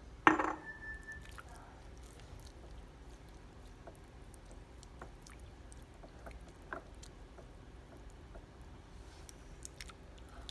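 A glass hot sauce bottle knocks down onto the stone countertop about a third of a second in, with a brief ring. After that come faint wet squishes and small clicks as a hand squeezes and mixes raw bull mountain oysters in hot sauce.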